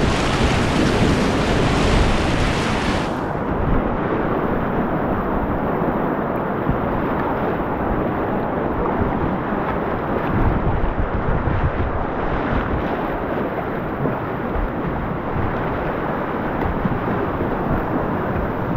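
Whitewater rapids rushing around a kayak, with wind buffeting the microphone. About three seconds in, the sound turns abruptly muffled and stays that way.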